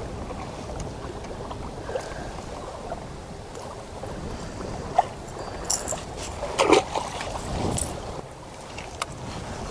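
Wind on the microphone and water lapping against a kayak hull on choppy water, with a few short clicks and knocks from handling a fish, lure and rod, mostly between about five and seven seconds in.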